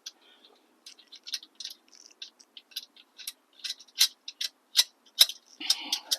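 A run of sharp, uneven metal clicks and ticks, a few a second, from small hardware and hand tools being handled while the engine is bolted in. They are loudest around four to five seconds in, and a short rustle comes near the end.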